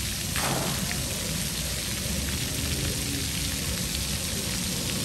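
Water spraying from splash-pad fountain jets and falling onto the wet play surface, a steady hiss of spray.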